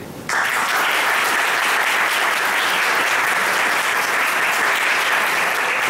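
Audience applauding, starting abruptly just after the start and keeping up a steady level.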